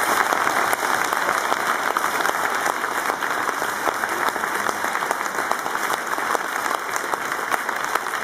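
Large audience applauding: dense, steady clapping.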